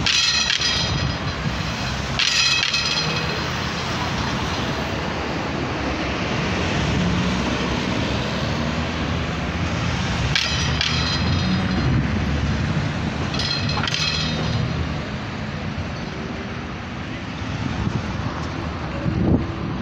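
City road traffic: cars driving past close by through an intersection, engines running and tyres on the road surface. Four short high-pitched chirps cut through, two near the start and two a little past the middle.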